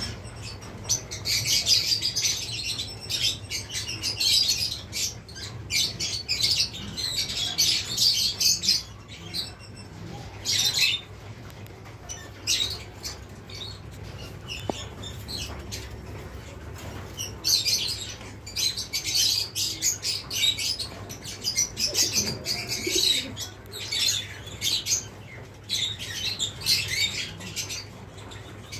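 Small birds chirping in rapid, busy bursts that come in clusters with quieter stretches in between, over a steady low hum.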